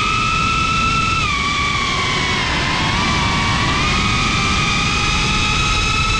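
FPV quadcopter's brushless motors and propellers whining, recorded by the onboard camera over a rush of wind noise. The pitch drops about a second in and rises again around three seconds in as the motor speed changes.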